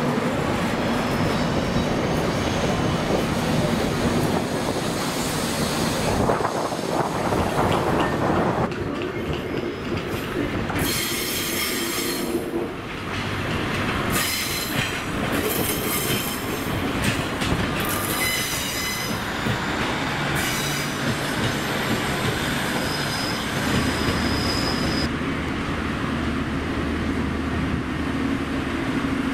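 A train moving slowly through a station, its wheels on the rails rumbling throughout and squealing in high, shrill screeches that come and go over several seconds. A low steady hum comes in near the end.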